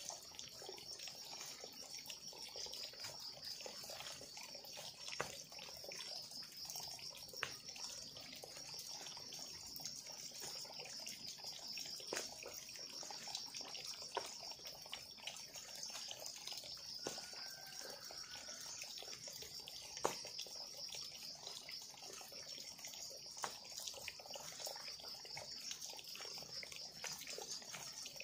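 Scattered knocks and scrapes of digging and clearing soil in a dirt trench by hand, a few seconds apart, the sharpest about twenty seconds in, over a steady high-pitched hiss.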